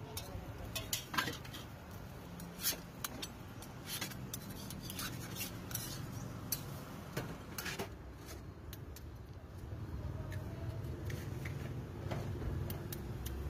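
Metal utensils clinking and scraping against small iron pancake pans, with a knife cutting through a folded pancake in its pan: a scatter of sharp clicks and scrapes. A low steady rumble grows louder about two-thirds of the way through.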